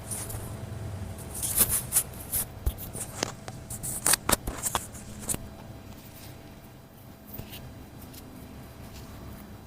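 Rustling of clothing and handling during hands-on manual therapy, with a run of sharp clicks and taps about two to five seconds in, then quieter shuffling.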